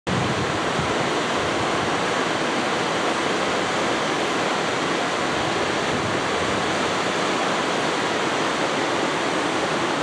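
Mountain waterfall cascading into a plunge pool: a steady rush of falling water that does not change.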